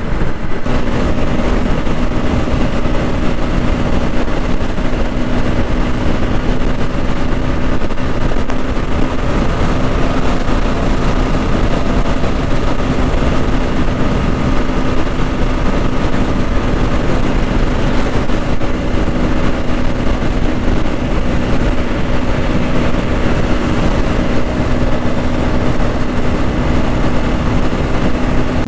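Bajaj Pulsar NS200's single-cylinder engine running at a steady cruise, its note holding one pitch, under a loud, even rush of wind and road noise.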